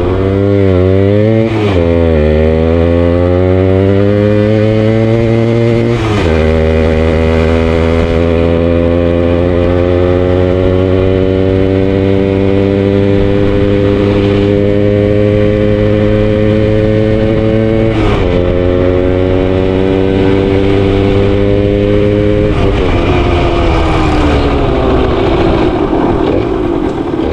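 1981 Yamaha DT 100's two-stroke single-cylinder engine as the bike pulls up through the gears. The note climbs steadily and drops sharply at each of three upshifts, then falls away near the end as the revs come down.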